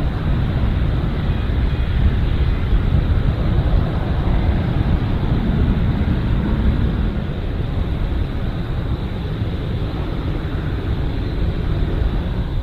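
Boeing 787-8 jet engines at takeoff thrust as the airliner makes its takeoff roll and lifts off: a loud, steady, deep rumble.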